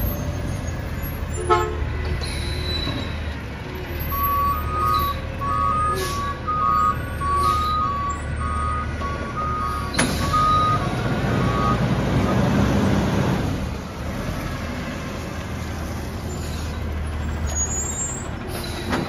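Front-loading garbage truck's engine running steadily. For several seconds in the middle, a high two-tone beep alternates in a regular pattern. Shortly after the beeping stops, the noise grows louder briefly and then settles.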